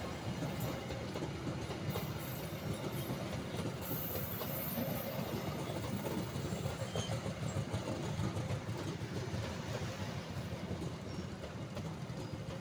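Indonesian passenger train coaches rolling past on the track at steady speed, a continuous wheel-on-rail noise with faint irregular clicks.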